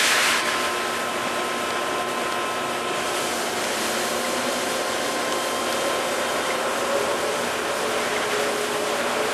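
Summit 36DC heavy-duty engine lathe running: a steady mechanical hum with faint whining tones.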